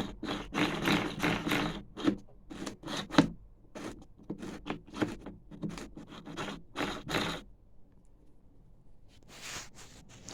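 Quick short scrapes and clicks of lawnmower drive parts being handled and fitted by hand, dense for about seven seconds, then a pause and one more scrape near the end.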